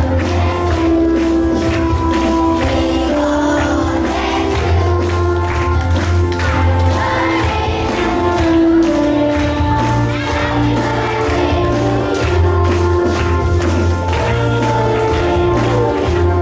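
Music playing: a melody of held notes over a bass line and a steady beat.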